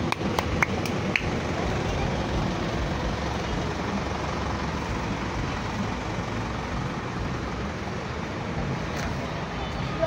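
Steady low vehicle rumble with a few sharp clicks in the first second; no bus horn sounds.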